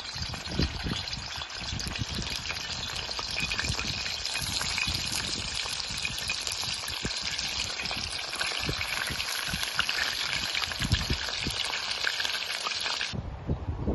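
Chicken pieces sizzling and crackling in hot oil in a black iron wok, a steady dense hiss. It cuts off suddenly near the end.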